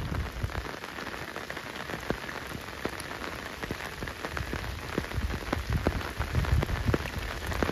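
Rain falling steadily, with many separate drops ticking sharply on a nearby surface over the hiss, and a low rumble underneath.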